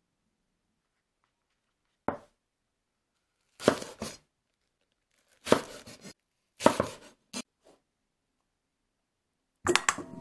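Chef's knife chopping green onion on a wooden cutting board, in a few short runs of strokes with silences between. Near the end, pieces of pork trotter clatter into a stainless steel mixing bowl, which rings briefly.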